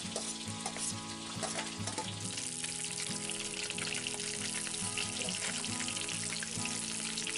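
Pangas (pyasi) fish steaks shallow-frying in mustard oil in a kadhai: a steady, dense crackling sizzle. Background music plays under it.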